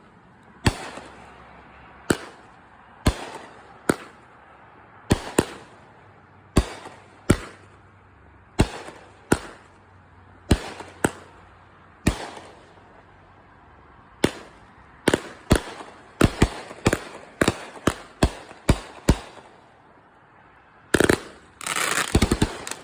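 Consumer fireworks cake (multi-shot repeater) firing: sharp bangs about once a second, coming faster about two-thirds of the way in, then after a short pause a dense crackling volley near the end.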